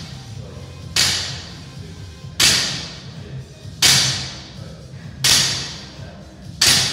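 Rhythmic workout-equipment strokes, one about every second and a half, five in all, each a sharp hit or whoosh that fades over about half a second, over background music.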